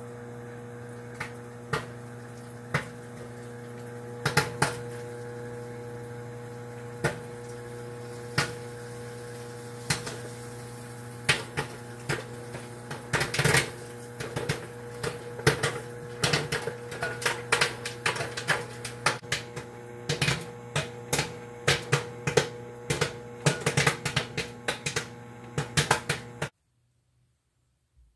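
Microwave oven humming steadily while a bag of microwave popcorn pops inside it. The pops come singly and sparsely at first, then grow quicker and denser, and everything cuts off suddenly near the end.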